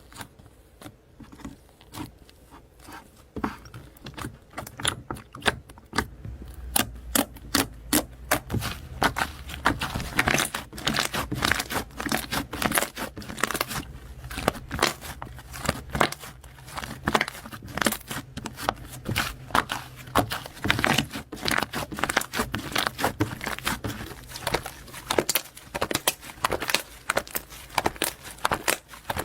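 Slime being squeezed and worked by hand, making a rapid run of sticky clicks and crackling pops: sparse at first, then dense and louder from about six seconds in.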